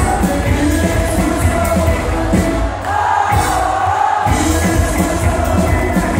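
Live band playing an up-tempo country-rock song: a man singing over acoustic and electric guitars, fiddle and drums. Midway the bass and drums drop out for about a second and a half, then come back in.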